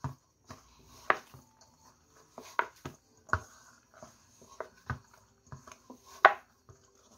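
Quiche shortcrust dough being kneaded by hand in a stainless steel bowl: irregular soft knocks and thumps of the hand and dough against the bowl, loudest about three and six seconds in. The dough is just coming together after a little water was worked in.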